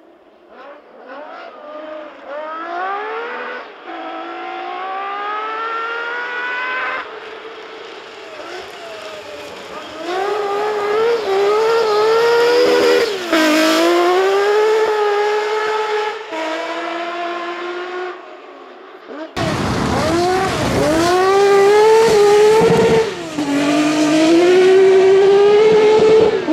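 Lancia Stratos rally car engine revving hard through the gears, its pitch climbing and then dropping at each upshift as the car approaches and passes. About 19 seconds in it cuts suddenly to a closer, louder pass at high revs, with more upshifts.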